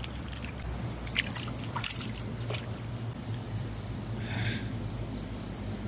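Stream water running steadily under a constant high-pitched hiss, with a few short clicks and small splashes and a brief rustle about four seconds in.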